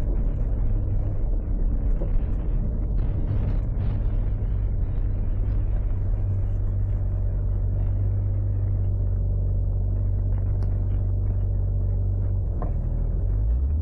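Turbocharged 2JZ straight-six of a Mk4 Toyota Supra running at a steady low drone while the car cruises. Near the end a click comes and the engine note shifts.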